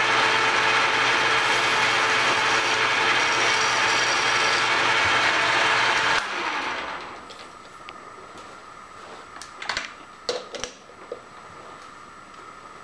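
Metal lathe running while the edge of the spinning metal part is smoothed by hand, a loud, rough scraping noise. It cuts off about six seconds in and fades, leaving a faint steady hum and a few sharp clicks a few seconds later.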